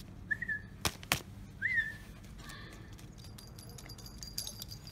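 Two short, thin, high-pitched whimpers from a Rottweiler puppy, each rising quickly and then holding, with two sharp clicks between them.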